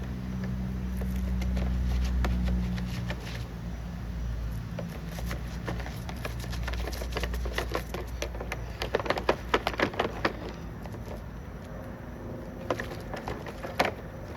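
A vehicle engine runs steadily with a low hum that fades out after about three seconds. It is followed by a series of small clicks and knocks from chainsaw parts being handled and scrubbed during cleaning, thickest about nine to ten seconds in.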